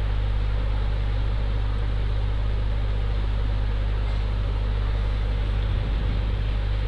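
Steady low electrical hum with a constant hiss over it, unchanging throughout.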